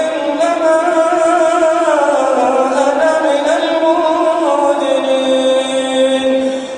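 A man's voice chanting Quran recitation (tajwid) in one long, drawn-out melodic phrase; the pitch slides lower about two seconds in and is then held, and a new phrase starts at the very end.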